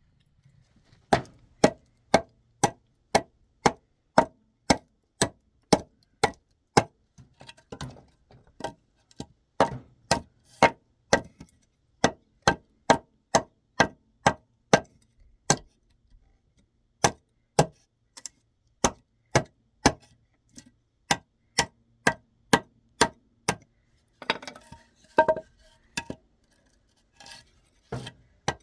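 Steel hammer driving nails into wood, steady blows about two a second with a short metallic ring on each, pausing briefly a few times.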